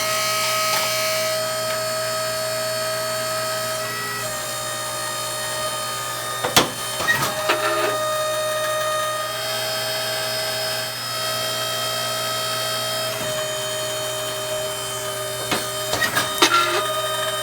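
55-ton hydraulic punch press (ironworker) running with a steady whining hum, punching holes through pipe forged flat for handles. Its pitch sags briefly a few times under load, and sharp clanks come about six and a half seconds in and again near the end.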